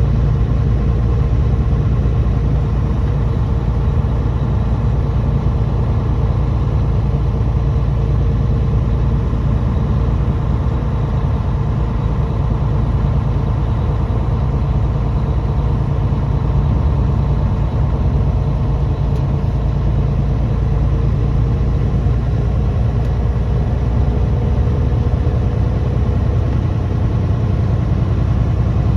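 A truck's engine running steadily while driving, with a constant low rumble of engine and road noise.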